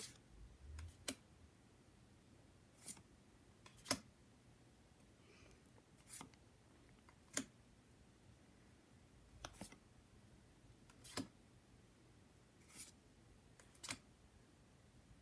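Pokémon trading cards being handled and flipped one at a time: a short, sharp card snap or click about every one to two seconds, with quiet in between.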